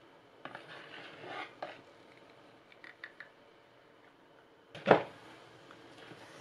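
Silicone spatula folding cake batter in a mixing bowl, with soft scraping and rubbing against the bowl and a few light ticks. One sharp knock a little before five seconds in is the loudest sound.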